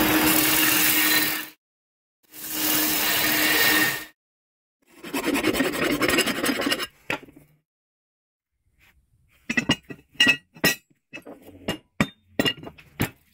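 A steel blade ground on a belt sander in two bursts of about a second and a half, the belt's steady hum under the grinding, followed by a couple of seconds of rougher scraping. From about nine seconds in comes a run of sharp clinks and knocks of steel pieces handled on a workbench.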